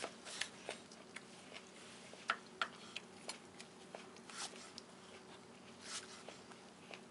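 Chef's knife slicing apple on a wooden cutting board: faint, irregular clicks and taps as the blade cuts through and meets the board, a couple of louder knocks a little past two seconds in.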